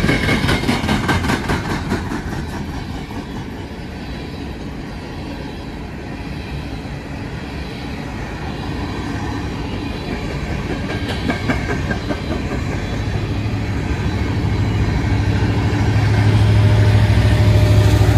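Empty steel coal hopper cars of a freight train rolling past close by, their wheels clicking rapidly over the rail. From about two-thirds of the way in, a steady low diesel engine drone builds and grows louder as a mid-train EMD SD70ACe locomotive draws near.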